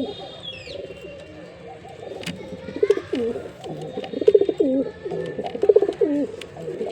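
Male domestic pigeon cooing over and over, a string of low, pitch-bending coos about once a second.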